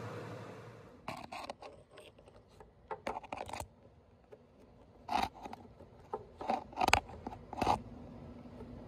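A run of short, irregular scrapes and scratches, the loudest about seven seconds in, after a steady background hum fades out about a second in.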